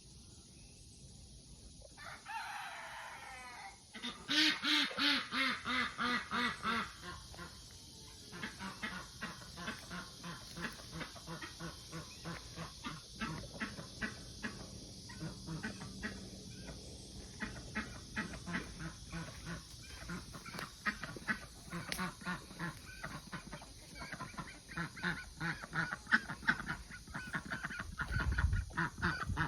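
Young chickens clucking and chirping steadily. A few seconds in, a young cockerel gives a raspy, low, immature crow, followed by a louder run of pulsed calls.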